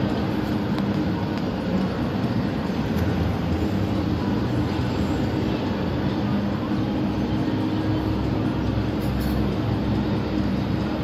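Engines of several sports cars running at low speed, a steady low rumble with no revving.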